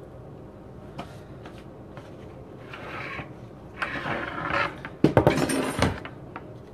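Kitchen handling sounds: a few light clicks and rustling, then a plate of fried coconut shrimp set down and slid across the counter about five seconds in, a clattering scrape that is the loudest sound.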